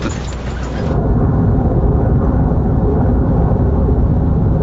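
Large aircraft's engines running in flight: a loud, deep, steady rumble that comes in about a second in.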